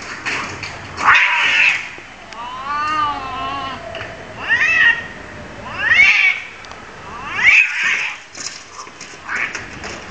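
Two domestic cats fighting, screeching and yowling. A long wavering yowl comes about two seconds in, then sharp rising screeches follow roughly every one and a half seconds.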